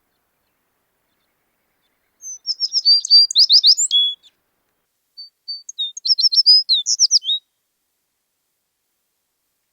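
American tree sparrow singing two song phrases about a second apart, each a quick run of high, sweet notes lasting about two seconds.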